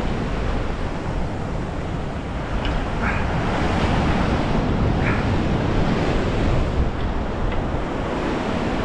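Ocean surf washing and breaking against the rocks close below, with wind buffeting the microphone. A few short, faint high squeaks sound over it now and then.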